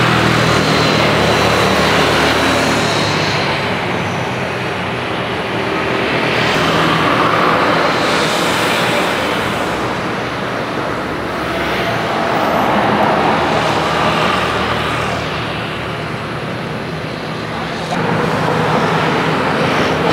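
Boeing 777 jet engines running as the airliner rolls along the runway, a steady roar with a low hum that swells and fades slowly. The level jumps up suddenly near the end.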